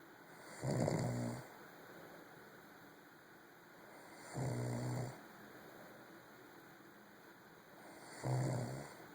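Snoring: three snores about four seconds apart, each a low buzzing rattle lasting under a second.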